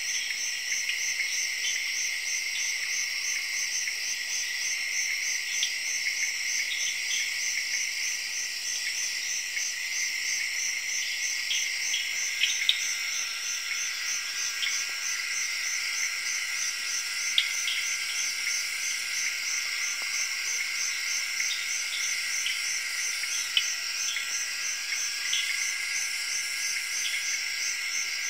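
Night chorus of insects in the Zairean (Congo) rainforest: several steady, high trills overlap, one of them pulsing rapidly, with short chirps scattered through. A lower trill joins about halfway through.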